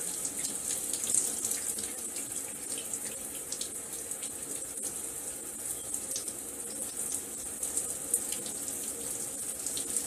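Water running steadily in a bathroom: a hiss of spray with faint irregular splashing.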